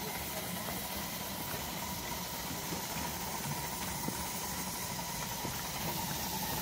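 Miniature vertical-boiler steam locomotive running along the track, a steady mechanical rumble with a faint hiss, growing a little louder near the end as it approaches.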